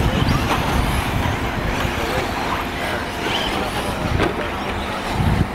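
Electric RC truggies racing on a dirt track, their motors running under a steady low rumbling noise.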